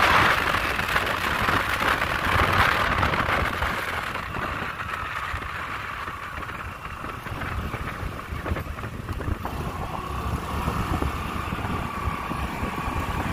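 Wind rush and road noise from riding a Honda Navi 109cc scooter on the road, with the low drone of the running scooter underneath. The wind rush is loudest at first and eases after about four seconds.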